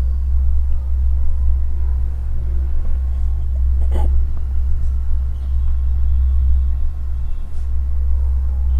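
A steady low rumble, with a single click about four seconds in.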